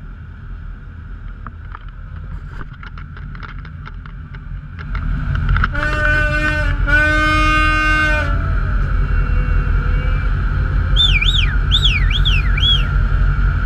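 Low rumble of a moving ship with wind noise, broken midway by two long blasts of a boat horn. Near the end comes a quick run of rising and falling whistles.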